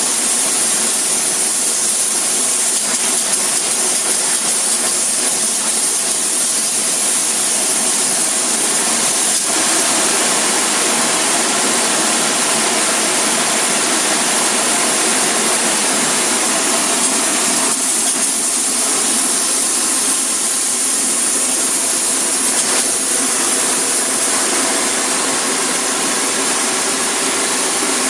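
Spray foam insulation gun hissing steadily as foam is sprayed, with only brief slight dips in the hiss.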